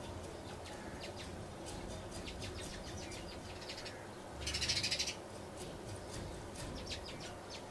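Qahwa simmering in an open pan on a stove, with faint scattered ticking from small bubbles. A brief burst of rapid high chirping comes about four and a half seconds in and is the loudest sound.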